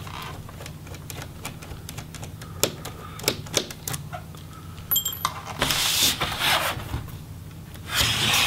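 Small screws being taken out of a laptop's plastic bottom case with a Phillips screwdriver: a run of light clicks and ticks. There is a louder scraping rustle about six seconds in and another near the end as the laptop is handled and turned over on the table.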